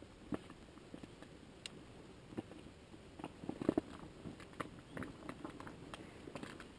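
Faint, irregular crackling and clicking rustles, with a small cluster of louder clicks about three and a half seconds in.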